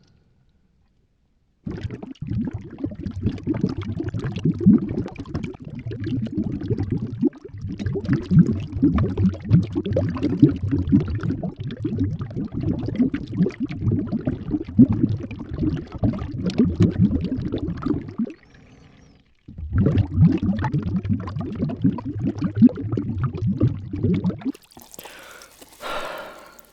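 Bubbles blown through a straw into water, edited to sound muffled like bubbling heard underwater. The dense, low bubbling starts about two seconds in, breaks off briefly twice and stops near the end.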